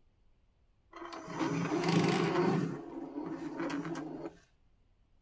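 Bambu Lab AMS filament feeder motor running with a steady geared whir for about three and a half seconds, pulling a filament strand into the unit, then stopping, with a couple of clicks just before it stops.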